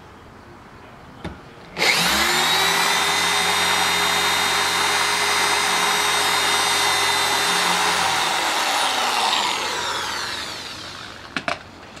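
Electric drill boring a pilot hole into a stucco wall: it starts suddenly about two seconds in, runs at a steady whine for about six seconds, then winds down with a falling whine.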